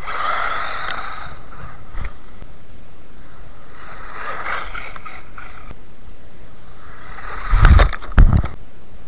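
WLtoys 12428 RC buggy's brushed electric motor and gears whining in two spurts as it drives on gritty, icy gravel. Near the end, two loud, heavy thumps close to the microphone as it comes right up to it.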